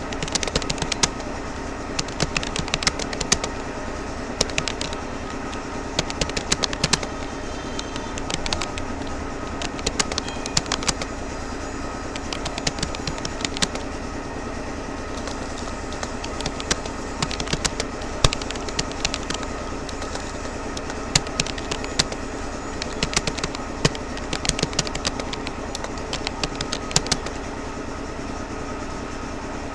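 Keys clicking on a Rapoo computer keyboard during touch typing, in quick uneven runs with short pauses, over a steady background hum.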